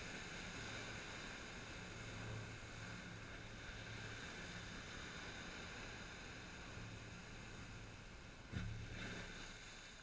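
Sea waves washing and breaking against a rocky shore, a steady rush of surf with a low hum that comes and goes. A single sharp thump about eight and a half seconds in.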